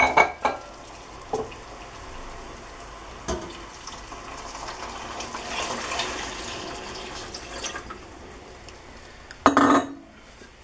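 Water poured from a glass pitcher into a stainless steel pot of hot caramel and soaked dried peaches, a steady rushing pour that swells in the middle. A few light clinks come early on, and a loud knock about nine and a half seconds in.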